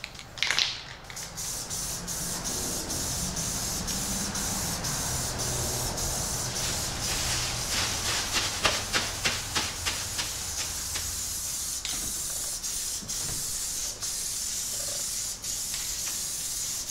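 Aerosol can of enamel spray paint hissing as paint is sprayed, with a run of short on-off pulses around the middle.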